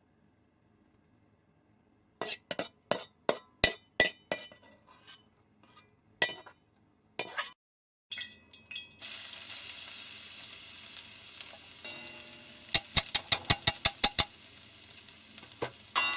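Utensils clinking sharply against cookware several times, then food starting to sizzle in a hot pan, with a quick run of about ten taps from stirring partway through the sizzle.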